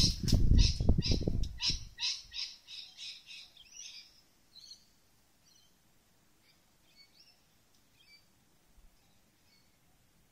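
A sulphur-crested cockatoo's wingbeats as it flies off. They are loud at first over a low buffeting, then become a run of beats about four a second that fades away within the first four seconds. A few faint bird chirps follow.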